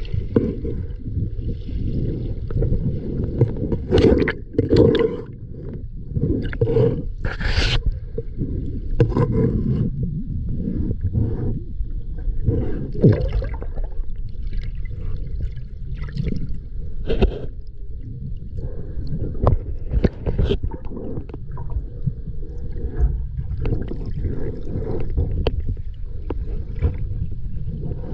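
Muffled underwater sound: a steady low rumble of moving water with irregular knocks, clicks and scrapes every second or two, likely the camera brushing and bumping along the hull.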